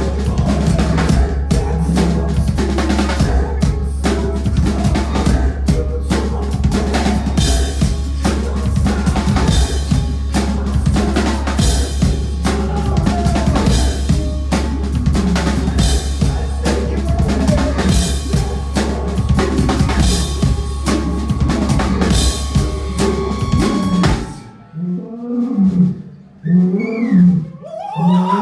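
Live band music, dominated by fast, busy drum kit playing over a heavy, steady bass. The music cuts off suddenly near the end, leaving short bursts of shouting voices.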